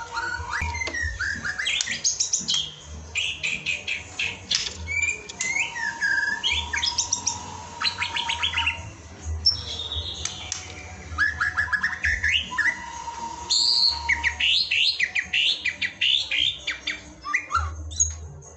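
White-rumped shama (murai batu) singing a varied song of clear whistled phrases that rise and fall, broken by fast rattling trills.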